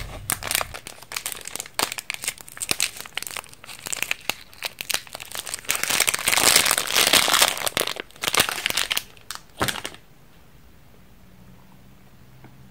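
Thin plastic candy wrapper crinkling and tearing as fingers peel it open around a candy tablet, busiest and loudest about two-thirds of the way through, then stopping suddenly near the end.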